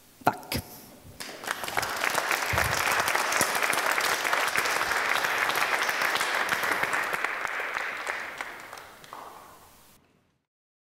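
Audience applauding: a few first claps, then dense steady applause that builds within about two seconds, holds, fades near the end and cuts off.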